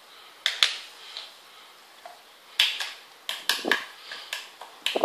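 Short plastic clicks and clatters of a toy doctor kit being handled: a couple about half a second in, then a run of them in the second half.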